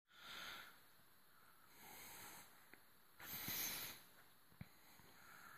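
Faint breathing close to the microphone: three soft breaths about a second and a half apart, the third the loudest, with a couple of light taps between them.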